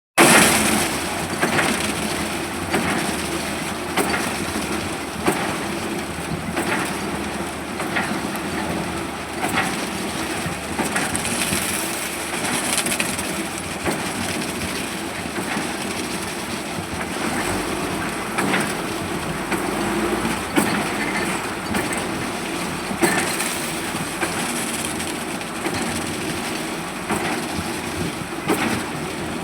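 Concrete-pouring machinery running steadily, with frequent irregular knocks and clattering.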